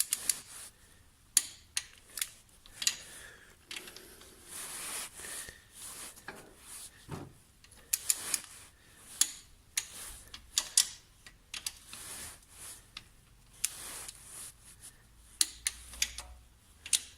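Irregular sharp metallic clicks and rattles of a torque wrench ratcheting and clicking off as engine cover bolts are tightened one by one, crosswise, to a set torque.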